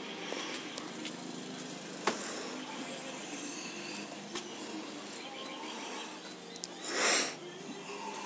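Workshop background with a low steady hum, scattered small clicks and knocks, and one brief loud rustle about seven seconds in.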